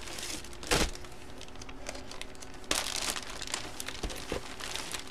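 Clear plastic bag crinkling and rustling as a bagged jersey is handled: a short louder rustle just under a second in, then a longer stretch of crinkling a little past the middle.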